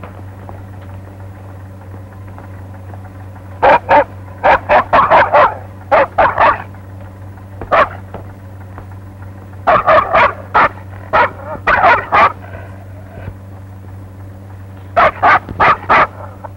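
Large leashed guard dog barking aggressively in rapid volleys of several barks each, starting about four seconds in and breaking off and resuming several times. A steady low hum runs underneath.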